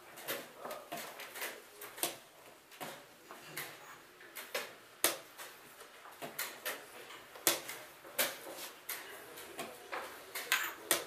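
Wooden chess pieces set down on the board and the buttons of a digital chess clock pressed in turn: a quick series of sharp clicks and knocks, about one or two a second, as the moves of a blitz game are played.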